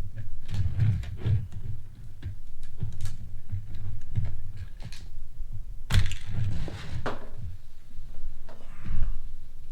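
Plastic Lego pieces clicking and rattling as they are handled and snapped together on a tabletop, with dull knocks against the table and a sharper clatter about six seconds in.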